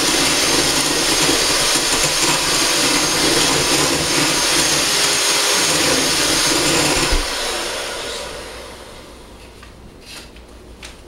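Electric hand mixer running at speed, beating butter, sugar and extract in a glass bowl. About seven seconds in it stops and the sound dies away.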